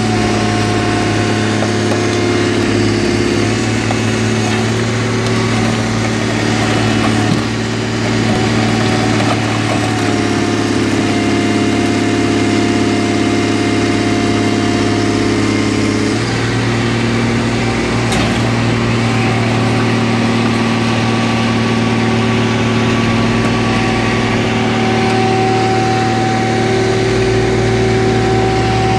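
Car crusher's engine and hydraulic power unit running steadily while the lid presses on a stack of crushed cars. The engine note changes twice, about ten seconds in and again about sixteen seconds in.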